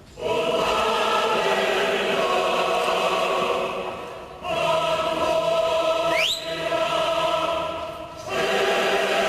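Music with a choir singing long held chords in three phrases. A short rising whistle cuts through about six seconds in.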